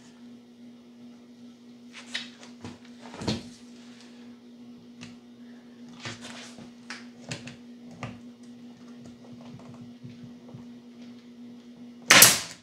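Wooden jig pieces being handled, with scattered knocks and clicks, then near the end one loud, short shot from a pneumatic stapler driving a staple into the pine jig. A steady low hum runs underneath.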